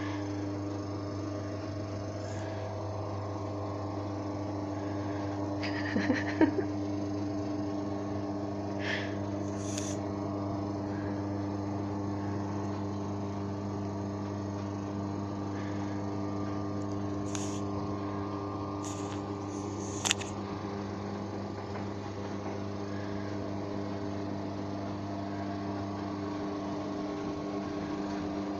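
Domestic stairlift's electric drive motor running steadily as the chair travels down the staircase rail, a constant electric hum. A short louder sound comes about six seconds in, and a sharp click about twenty seconds in.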